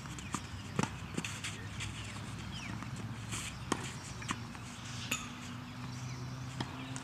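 Tennis ball struck by racquets and bouncing during a rally: sharp single pops about a second apart, with birds chirping now and then.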